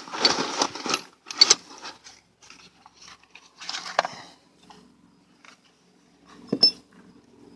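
Handling noise: rustling with small metallic clicks and clinks, like an old wheel bearing being picked up and turned in the hands, busiest in the first two seconds, with one sharp click near the end.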